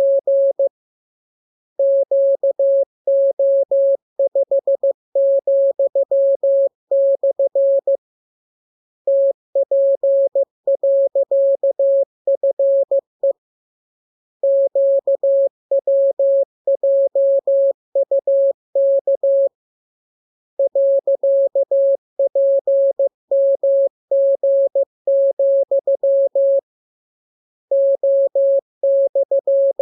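Morse code (CW) practice signal: one steady pitched tone keyed on and off in dots and dashes. It comes in groups of characters about five seconds long, separated by pauses of about a second.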